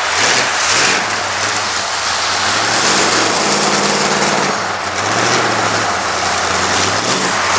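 Motor vehicle engine running, revving up about three seconds in, holding there briefly, then dropping back.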